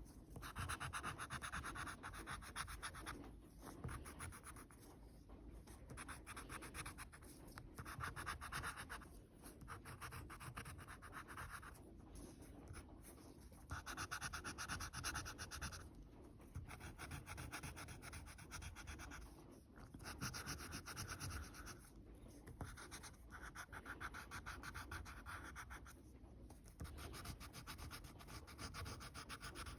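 Drawing tool scratching across paper in repeated strokes, each stretch lasting a second or a few seconds with short pauses between.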